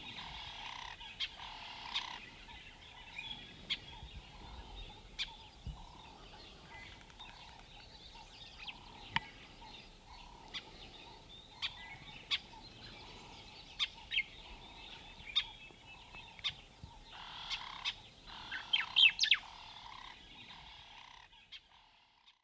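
Outdoor nature ambience of birds calling: single sharp chirps every second or two, with two spells of busy twittering, over a soft note that repeats steadily underneath. Fades out near the end.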